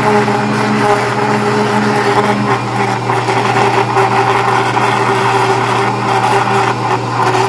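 Small kitchen blender running steadily at one speed, its motor giving a constant whir and hum as it churns a liquid milk-and-condensed-milk pudding mix.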